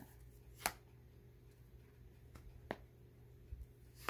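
Tarot cards being handled: a few sharp, separate clicks as cards are drawn from the deck and one is laid down, the loudest about half a second in, over a faint low hum.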